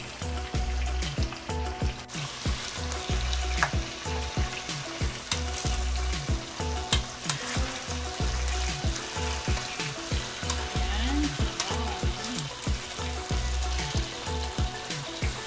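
Beef ribs searing and sizzling in hot oil in a nonstick pan, with clicks and scrapes as metal tongs turn the pieces. Low background music with a regular beat runs underneath.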